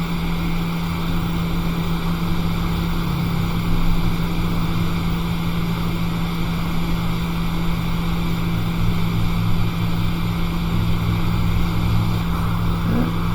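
Hot air rework station blowing steadily on an iPhone 6S logic board to desolder the Tristar charging chip: a constant rush of air over a steady low hum.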